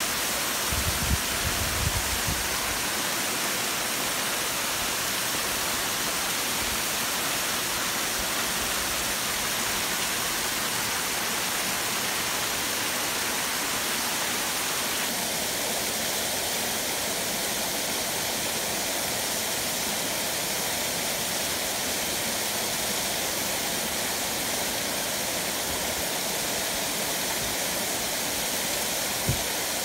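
A thin waterfall pouring down a rock face and splashing onto the rocks below: a steady rushing hiss, with a few brief low bumps in the first two seconds.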